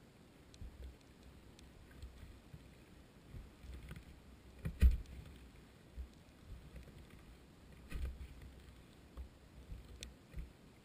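Muffled low thumps and knocks picked up by a GoPro in its underwater housing on the seafloor, 170 feet deep, with one much louder knock about five seconds in and another near eight seconds.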